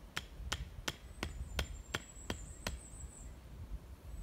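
Wooden stake being driven into the ground with the back of a hatchet: about eight sharp, evenly spaced knocks, roughly three a second, that stop a little under three seconds in.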